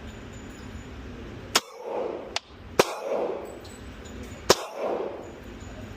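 Glock 27 subcompact .40 S&W pistol firing three single shots, about a second to a second and a half apart, with a fainter sharp snap between the first two. Each shot is followed a fraction of a second later by a longer, duller ringing sound.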